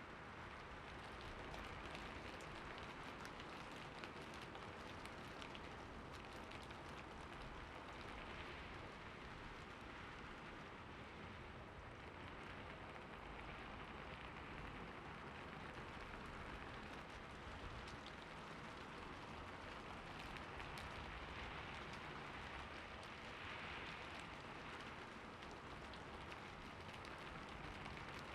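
Steady rain falling on a surface, a continuous patter with many fine individual drop ticks.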